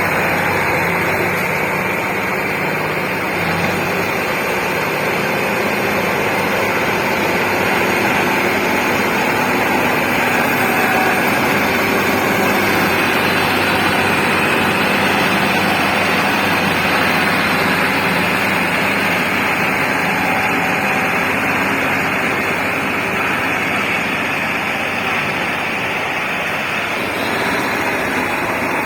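Heavy diesel engines of earth-moving equipment running steadily at a fairly constant pitch.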